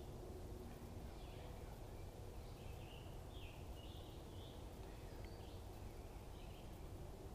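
Birds calling faintly outdoors: a scatter of short high chirps over a steady low background rumble.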